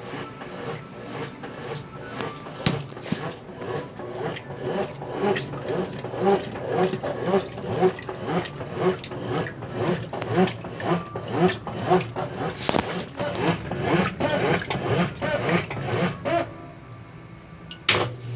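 Consul Facilite 10 kg top-loading washing machine agitating its load with a Brastemp BWL09 agitator. Water and clothes slosh in a regular back-and-forth rhythm of about two strokes a second. The agitation stops near the end, followed by a sharp click.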